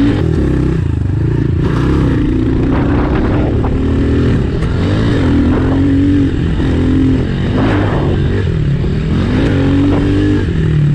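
Honda CRF110F pit bike's small single-cylinder four-stroke engine being ridden hard, heard close up. Its revs climb and drop again and again as the throttle is worked and the rider shifts gears around the track.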